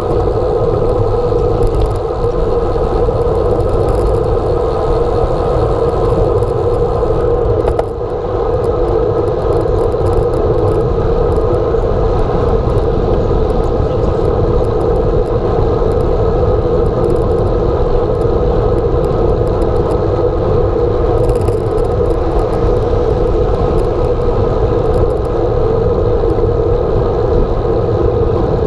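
Steady rush of wind and road rumble picked up by a camera mounted on the handlebar of a moving bicycle, with a brief dip about eight seconds in.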